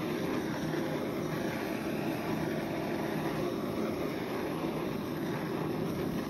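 Handheld butane torch running with a steady hiss as it is played over wet poured acrylic paint.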